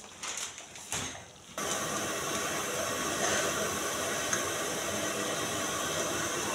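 Steady hiss of a high-pressure LPG gas burner running under a cooking pot, starting abruptly about a second and a half in, after a few light knocks.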